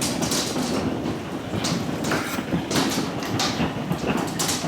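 Golf-ball-size hailstones pounding down, a dense, continuous clatter of hard impacts over a steady rushing noise.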